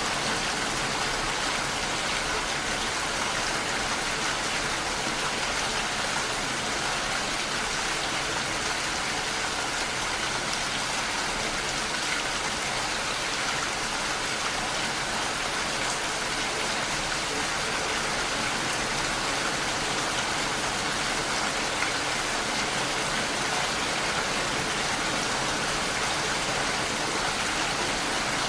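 Steady rain falling, an even hiss that holds constant throughout, with no thunder or separate drips standing out.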